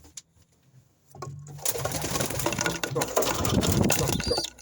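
Pigeons cooing, with loud close rustling, clicks and knocks starting about a second in.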